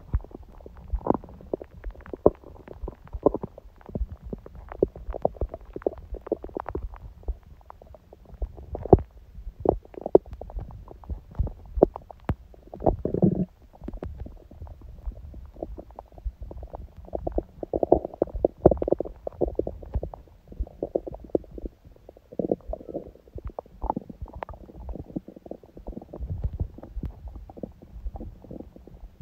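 Human stomach gurgling: a steady run of short, irregular gurgles and pops, with a longer, louder gurgle about 13 seconds in and a cluster of gurgles a few seconds later.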